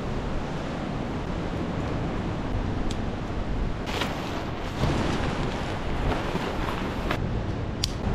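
Ocean surf washing and wind buffeting the microphone, a steady rushing noise heaviest in the low end, with a few sharp clicks through the middle and near the end.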